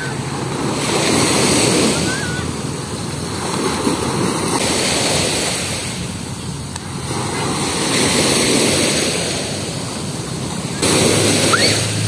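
Ocean surf: waves breaking and washing up the beach, rising and falling in swells every three or four seconds.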